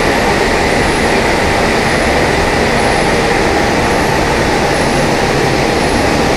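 Loud, steady din of tea-processing machinery running (conveyors and leaf-rolling machines), with a steady whine and a faint high chirp repeating about once a second.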